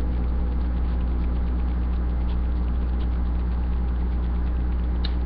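Steady low hum with a faint even hiss and no music, holding one unchanging level; a single faint click near the end.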